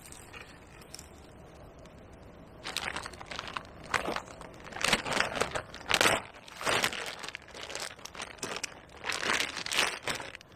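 Plastic bag crinkling and rustling as it is handled and opened, in irregular bursts starting about three seconds in.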